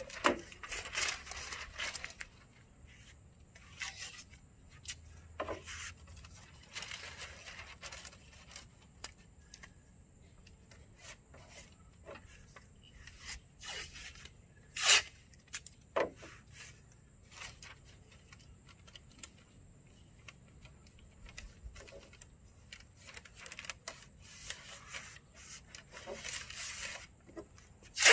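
Masking paper rustling and crinkling as it is handled, and painter's tape being pulled off the roll and torn, in scattered bursts, with two sharp snaps about halfway through.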